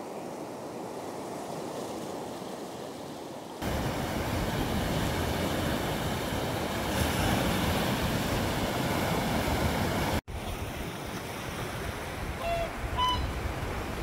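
Sea surf washing over a rocky shore, a steady rush with wind buffeting the microphone. It gets suddenly louder about four seconds in and drops out for an instant about ten seconds in. A couple of short, faint high tones sound near the end.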